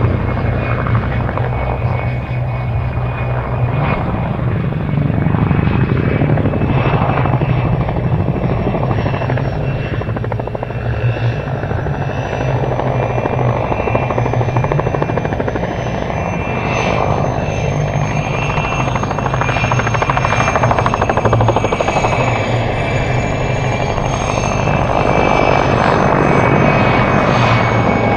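PZL-Świdnik Mi-2 helicopter flying a low display: the steady chop of its main rotor over the whine of its twin GTD-350 turboshaft engines, swelling and easing as it turns towards and away.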